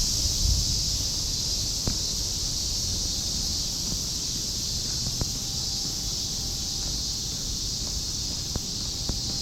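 Cicadas in chorus, a steady high-pitched drone, over a low wind rumble with a few faint clicks.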